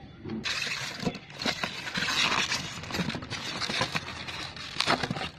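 Polystyrene foam packing rubbing and crackling as a packed part is lifted out of a cardboard box: a dense run of rustling with many small sharp clicks, starting about half a second in and stopping just before the end.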